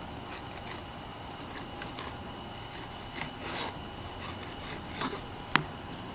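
Knife blade scraping and slicing between a flounder fillet and its skin as the skin is cut away, in short faint strokes over a steady background hum. A sharp tap about five and a half seconds in.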